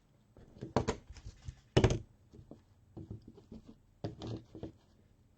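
Hands handling things on a tabletop: a few sharp knocks, the loudest about two seconds in, with softer taps and rustling between.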